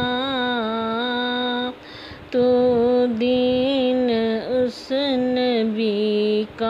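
A woman singing a devotional Urdu nazam of farewell to Ramadan in long, slowly wavering held notes, with no instruments heard. The voice breaks off for a short breath about two seconds in, then goes on.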